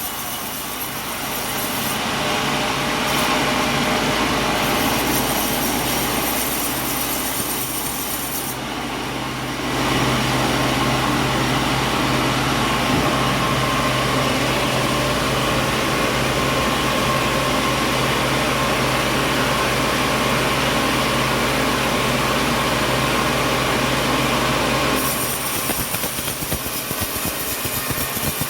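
Sawmill saw running and cutting coconut wood, a steady machine sound with a noisy rasp. It grows louder about ten seconds in and eases back a few seconds before the end.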